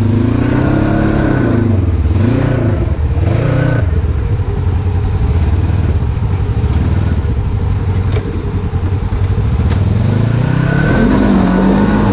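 Polaris RZR side-by-side engine revving in three rising-and-falling bursts, running steadier in between, as the machine tries to climb a wet bank while high-centered.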